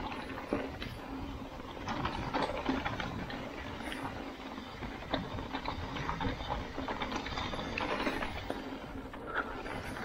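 Mountain bike rolling down a rough trail: the rear hub's freewheel ratchet clicks as the bike coasts, mixed with irregular rattles and knocks from the bike over the ground.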